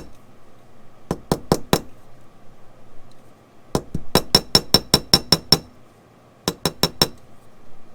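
Small ball-peen jeweler's hammer giving a copper rivet's domed head quick, light taps around its edge, each tap a short metallic clink with a bright ring. The taps come in three runs: about four a second in, about ten in quick succession in the middle, and about four near the end.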